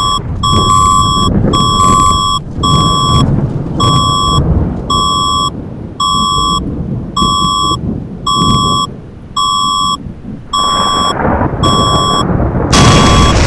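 Emergency alert tone: a steady train of short electronic beeps, a little more than one a second, over a continuous loud rumble of thunder and explosion effects. A loud blast breaks in near the end.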